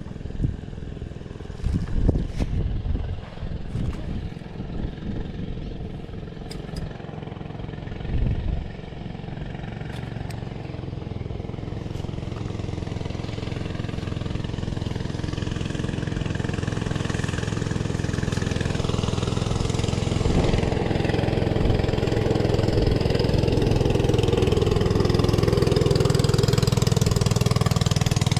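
A motor engine running steadily and growing gradually louder, with a few knocks in the first several seconds.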